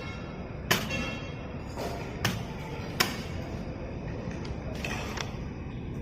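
Air filter cover on a rotary screw air compressor being unfastened and lifted off: three sharp clicks and knocks in the first three seconds, the first with a brief ring.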